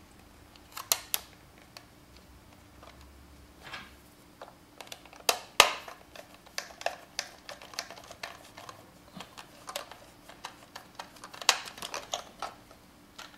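Light clicks and taps of a plastic toy robot kit being handled while its lid is fastened with small screws. The clicks are scattered at first, with the loudest a little after halfway, then come in quicker runs of small ticks.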